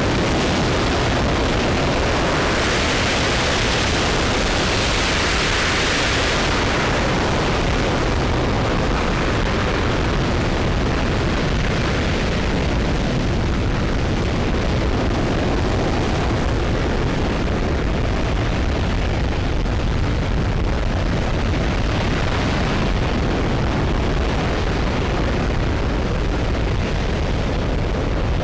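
RS-25 liquid-hydrogen rocket engine firing steadily on the test stand: a continuous, unbroken rumble with hiss, a little brighter a few seconds in.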